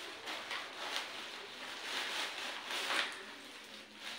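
Plastic bags rustling and crinkling as they are handled, in several swelling surges.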